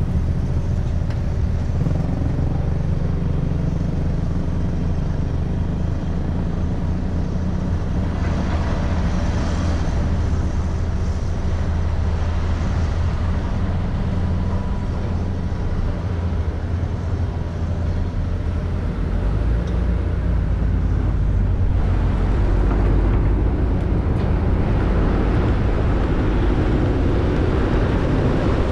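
A car driving: steady engine rumble and road noise, getting a little louder and rougher about two-thirds through.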